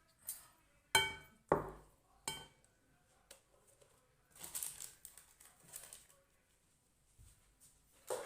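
Kitchen dishes and utensils being handled: three sharp clinks in the first two and a half seconds, the first ringing briefly, then softer scraping and rustling, and a knock near the end.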